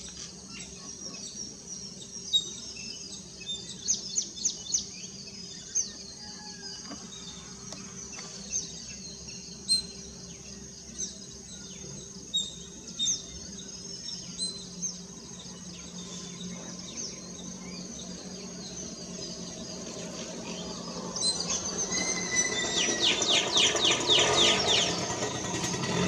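Birds calling: scattered short, high chirps, then a quick chattering run of calls near the end, over a steady low background hum.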